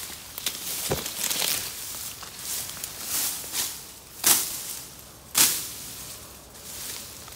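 Irregular crunching and rustling, like dry leaves and brush being trodden or handled, with two sharp cracks about four and five and a half seconds in.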